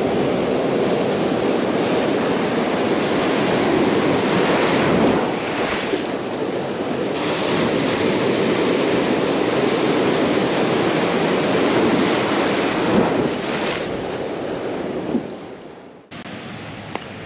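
Ocean waves breaking in a steady rush, with wind, swelling a couple of times. Near the end it fades and drops suddenly to a quieter background.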